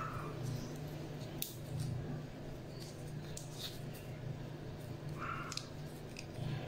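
Crisp clicks and rustles of a fresh pandan leaf being bent, folded and tucked into a wrap around a prawn, over a steady low hum.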